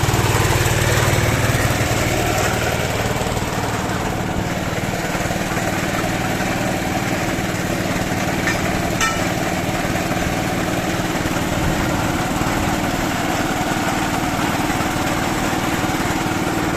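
Small pump engine running steadily, driving a homemade water-well drilling rig through a Suzuki Carry gearbox and differential. It eases slightly in the first few seconds, then runs on evenly, with a couple of faint clicks near the middle.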